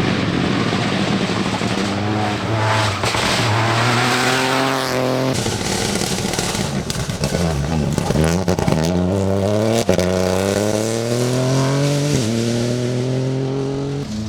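Peugeot 208 Rally4 rally car's turbocharged three-cylinder engine at full throttle, its pitch climbing through each gear and dropping sharply at each shift, several times over, with some tyre squeal.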